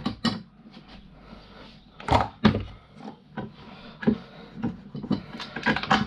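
Irregular clicks and knocks of scooter parts being handled and worked loose while an aluminium push scooter is taken apart for scrap, with two louder knocks about two seconds in.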